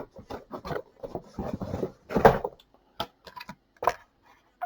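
Handling of toy car packaging: an irregular run of short clicks, taps and brief rustling scrapes.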